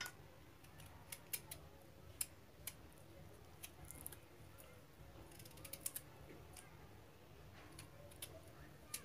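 Faint, scattered clicks and scrapes of a small knife peeling sweet potato skin.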